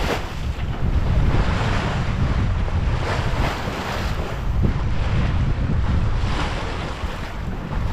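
Heavy wind buffeting the microphone, under the rush and splash of a sailboat's bow wave along the hull, swelling every second or two as the boat moves through the waves.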